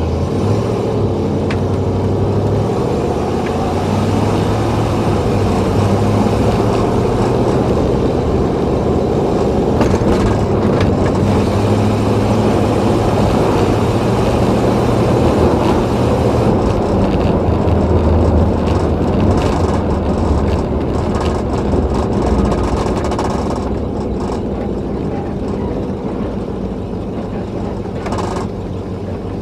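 1963 Oldsmobile 98's 394 V8 running as the car is driven, warm and steady, with engine and road noise; the engine note shifts a little with speed and the sound eases off over the last few seconds.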